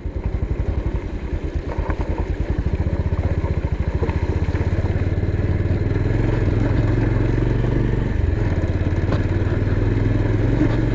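Motorcycle engine running while riding, its beat quickening over the first few seconds as the revs rise, then holding steady.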